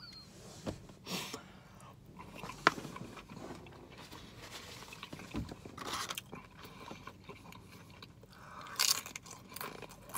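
A person chewing and biting food close to the microphone, with scattered crunches and one sharp crunch a little under three seconds in.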